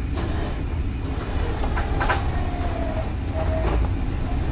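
Off-road vehicle running with a steady low rumble, with a few sharp knocks and short squeaks or creaks over it while crawling over rocks.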